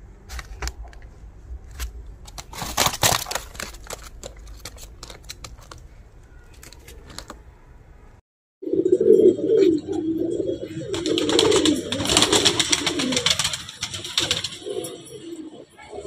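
Domestic pigeons cooing: a low, warbling coo that runs on through the second half, with a stretch of hiss in the middle of it. Before that, scattered clicks and light rustles, with a sharper cluster about three seconds in.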